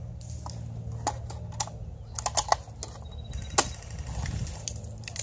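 Airsoft guns snapping off shots in an irregular string of sharp clicks, one loud crack about three and a half seconds in and a quick run of three just before it, over a steady low rumble.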